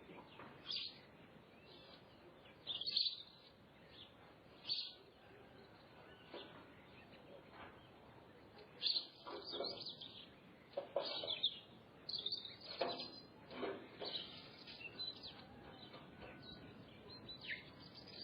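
Wild birds chirping and calling in the countryside: short calls coming irregularly, busiest in the middle, over a faint steady background hiss.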